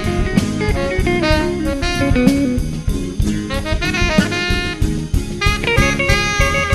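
A band's song in an instrumental passage: a melodic lead line over a steady drum-kit beat.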